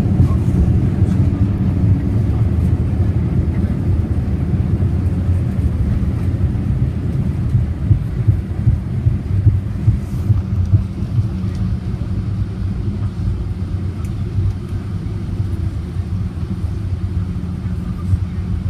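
Cabin noise inside a Boeing 787 Dreamliner rolling on the ground after landing: a steady low rumble of engines and undercarriage that eases slightly, with a few light knocks about halfway through.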